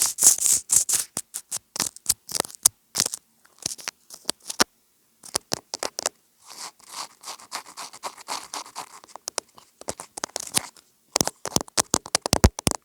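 ASMR tapping and scratching on a homemade object: quick sharp clicks and scratches, a brief pause about five seconds in, a softer rubbing stretch, then rapid tapping near the end.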